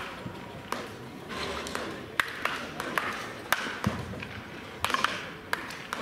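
Wooden bat cracking against baseballs in soft-toss batting practice, a sharp hit about every second or so, over a murmur of voices.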